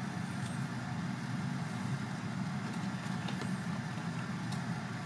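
Steady low background hum, with faint light ticks of trading cards being slid across one another by hand.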